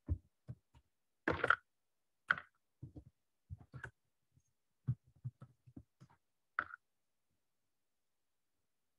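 Irregular light knocks and clicks, about a dozen spread unevenly, with a couple of short scraping sounds: one about a second and a half in and one past the middle.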